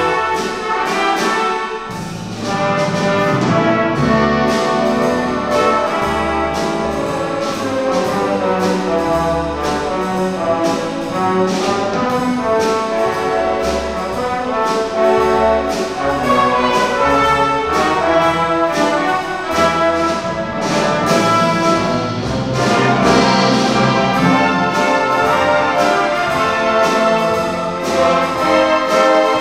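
Youth symphony orchestra playing a light pop-standards medley arrangement: strings, woodwinds and brass together over a steady beat.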